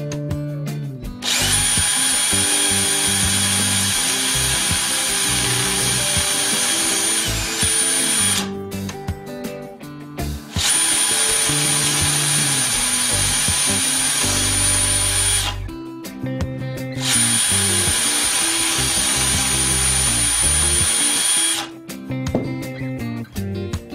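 A DeWalt cordless drill boring through plywood in a drill guide, in three runs of several seconds each with a steady high motor whine and short pauses between them. Background guitar music plays throughout.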